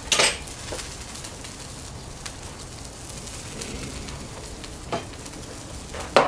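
Scallions and other vegetables sizzling steadily in oil on a hot Blackstone flat-top griddle, softening. A few sharp knocks sound over it, the loudest just after the start and near the end.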